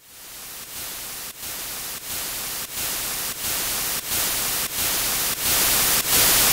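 White-noise static swelling louder in steps, broken by a brief dropout about every two-thirds of a second, like a rhythmic noise build-up.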